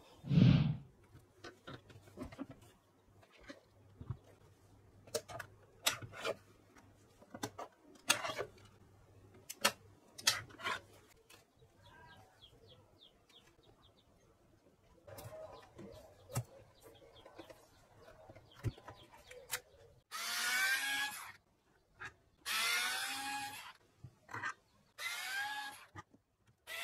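Electric screwdriver running in three short bursts of about a second each in the second half, its motor pitch rising each time as it backs screws out of a speaker cabinet's driver panel. Before that, scattered sharp clicks and scrapes of a metal speaker grille being pried off with a knife, and a thump near the start.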